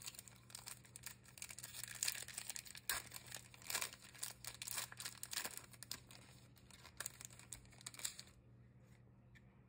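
Wrapper of a Topps Big League Baseball trading card pack being torn open and crinkled by hand, a rapid run of crackles that stops about a second and a half before the end.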